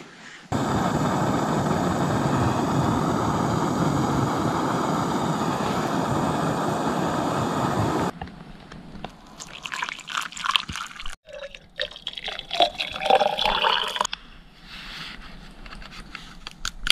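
Canister camp stove burning under a pot, a loud steady rushing that starts suddenly about half a second in and cuts off about eight seconds in. After it comes hot water being poured, with clinks and splashes, and instant coffee mixed into a collapsible cup.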